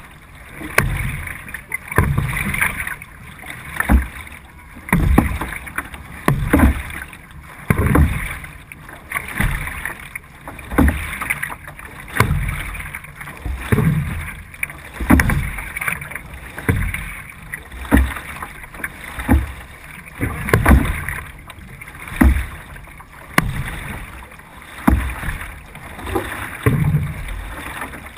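C1 sprint canoe being paddled at race pace, heard from a bow-mounted camera: a rhythmic splash and surge of water with each paddle stroke, about one stroke every second and a half, over a steady rush of water along the hull.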